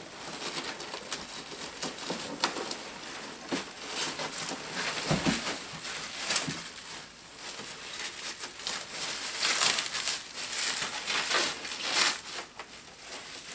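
Packing material being handled and unwrapped, crinkling and rustling irregularly, with a dull knock about five seconds in.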